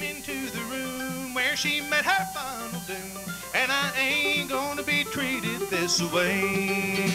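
Live bluegrass band playing an instrumental break: fiddle taking the lead with sliding notes over strummed acoustic guitar, mandolin and upright bass.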